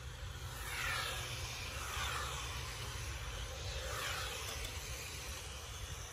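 Electric motors of Tamiya TT01 radio-controlled touring cars whining as the cars race past. The whine falls in pitch three times, about one, two and four seconds in.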